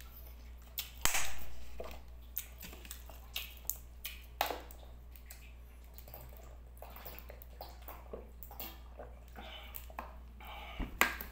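Close-up eating sounds: chewing and small mouth clicks, with sharp clicks and knocks scattered through, the loudest about a second in and just before the end. Partway through he drinks from a plastic water bottle.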